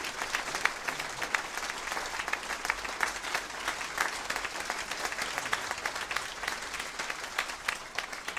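Crowd applauding: many people clapping together, easing off a little near the end.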